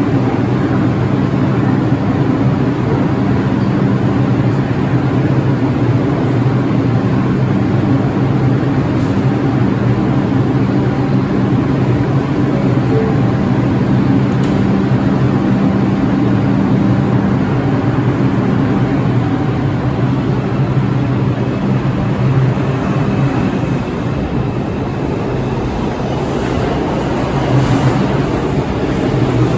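New York City subway train standing at the platform with a loud, steady electrical and ventilation hum, then starting to move off near the end.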